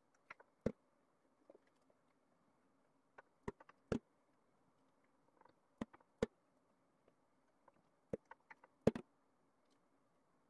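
Irregular sharp taps and knocks of a long, thin wooden rolling pin wrapped in layers of baklava dough as it is rolled and pressed against a wooden table, about a dozen over the span, the loudest near the middle and near the end, over a faint steady hiss.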